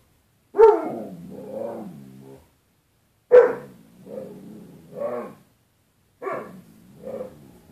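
A dog barking and "talking" at its own reflection, which it takes for another dog. There are three bouts about three seconds apart, each a sharp bark trailing off into a wavering, drawn-out moan.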